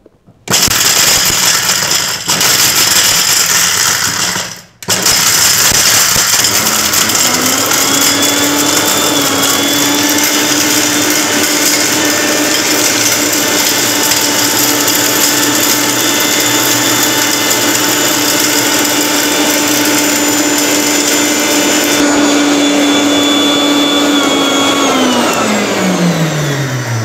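Sujata Dynamix 900-watt mixer grinder grinding hard dried turmeric pieces in its steel jar. It starts almost at once and stops briefly about five seconds in. It then runs steadily with a motor whine that rises and settles, and winds down with a falling whine near the end as it is switched off.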